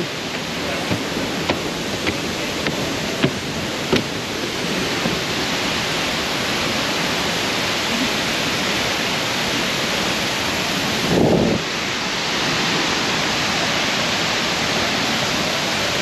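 Steady roar of La Fortuna waterfall's falling water, with a few sharp clicks in the first four seconds and a short, louder low sound about eleven seconds in.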